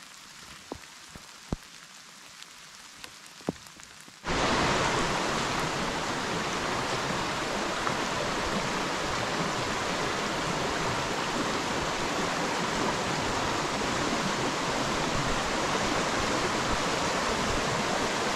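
Light rain hiss with a few sharp drip ticks. About four seconds in, it is cut off suddenly by the loud, steady rush of a rain-swollen stream in spate.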